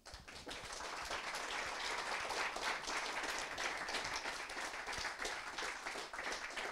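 A small audience applauding, many hands clapping together. It builds over the first second and then holds steady.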